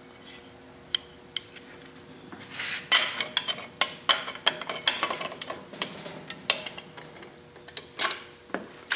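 A metal lathe gear guard being worked into place over the headstock gears of a South Bend 9-inch lathe: a string of metallic clinks, knocks and scrapes. It starts sparse and gets busiest from about three seconds in.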